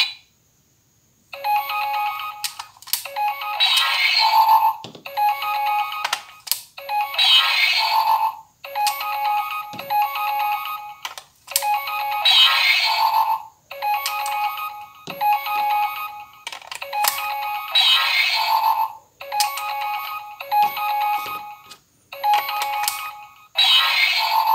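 Auldey DX Rescue Driver toy playing a series of short electronic jingles and sound effects through its small built-in speaker, tinny with no bass. They are broken up by sharp plastic clicks as badges are swapped and buttons pressed.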